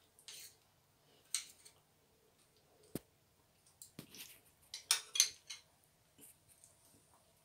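Metal spoon scraping and tapping in a small bowl of soft ice cream: scattered faint scrapes and clicks, the loudest about five seconds in.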